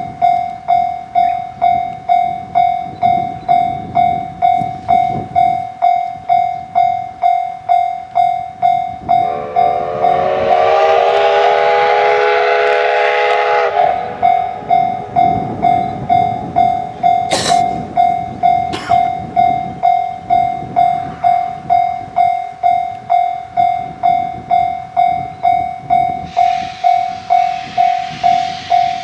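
A Japanese railway level-crossing bell rings steadily, striking about one and a half times a second. About nine seconds in, the C57 steam locomotive blows its whistle, a chord of several notes held for about four seconds. Two sharp knocks follow a few seconds later, and near the end a rushing hiss rises as the train comes on.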